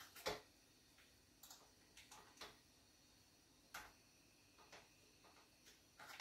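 Faint, scattered light taps and clicks of a kitchen utensil against the rice cooker's pot as coconut oil is added to the rice; about eight or nine small strokes at uneven intervals, the sharpest about a third of a second in.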